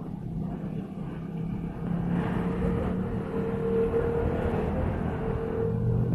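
A motor vehicle's engine running steadily: a low hum with a higher tone above it that comes up strongest in the middle.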